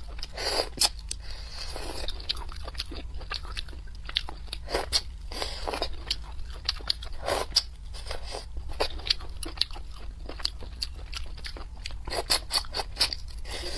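Close-miked eating of spicy crayfish: irregular crunchy bites and wet chewing and sucking, many sharp clicks with no steady rhythm.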